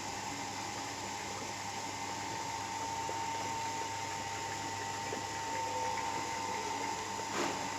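Steady machine whine and hiss, with one short knock near the end.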